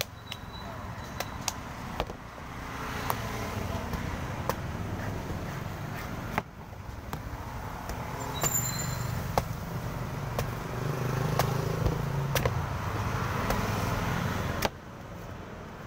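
A cleaver chopping and slicing into the husk of a young green coconut on a wooden board: sharp chops at irregular intervals, over steady road-traffic noise.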